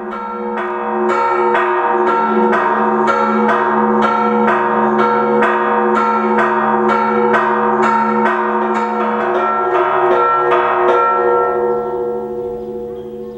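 Church bells rung in quick succession, about two strokes a second, their tones ringing over one another; the strokes stop near the end and the ringing fades out.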